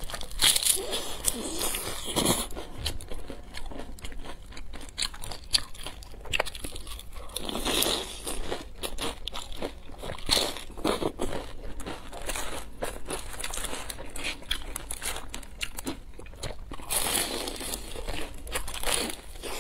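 Close-up crunching bites into crisp deep-fried pastry pockets with a green-flecked filling, followed by chewing. There are louder crunch clusters about half a second in, around eight and ten seconds in, and again near the end.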